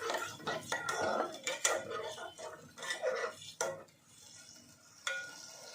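Spoon stirring in a pan of sauce, with a quick run of clinks and scrapes of metal against the pan for about three and a half seconds, then quieter.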